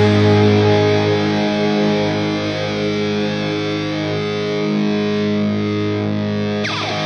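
Rock song ending on a distorted electric guitar chord that is held and rings out, slowly fading. A brief slide sounds near the end.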